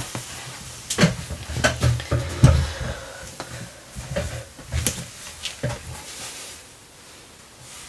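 Hardcover art books being handled and swapped: a string of knocks and rustles, the loudest about two and a half seconds in, quietening near the end.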